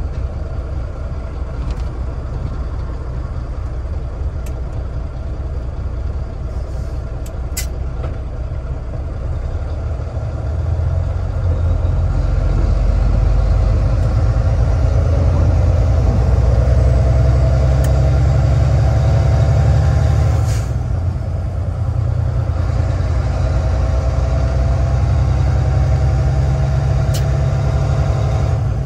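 Volvo D12 diesel semi truck under way, heard from inside the cab: the engine pulls and climbs in pitch as the truck accelerates, drops suddenly about two-thirds through as a gear is float-shifted on the 13-speed Eaton manual transmission without the clutch, then climbs again.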